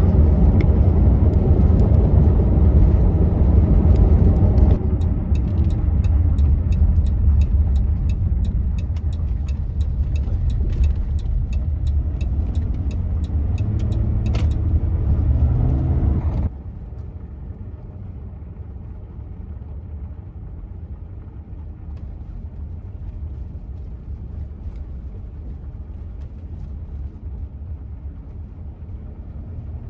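Road noise heard inside a minivan's cabin while driving: a steady low rumble of engine and tyres, with fast light ticking for several seconds in the middle. About 16 seconds in it drops suddenly to a quieter, smoother rumble.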